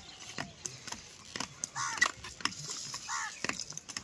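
A few light clicks and taps from hands handling a small product box and cable, with a bird giving two short calls, about two seconds in and again about three seconds in.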